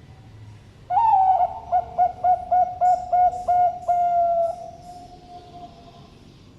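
Zebra dove (Bangkok-strain perkutut) cooing: a rising opening note about a second in, a quick run of about eight short notes, then a long drawn-out final note that fades away.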